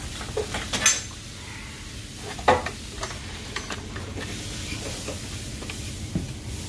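Clicks and light clatter of a plastic fuel pump module and its level sender being handled and worked on by hand: a few sharp clicks in the first three seconds, the loudest about two and a half seconds in, then lighter ticks, over a steady low background noise.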